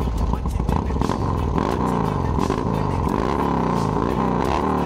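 Harley-Davidson Dyna V-twin engine, rebuilt with an S&S 95-inch big-bore kit, running and being revved, its pitch rising and falling several times.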